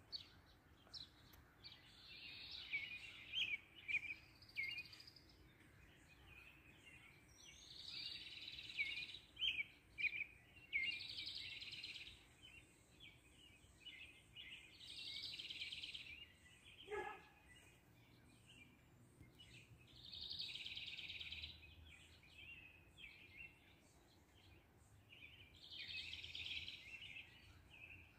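Sparrows chirping in the yard: scattered short high chirps, with denser bursts of chatter coming every four or five seconds. A brief falling whistle sounds once about midway.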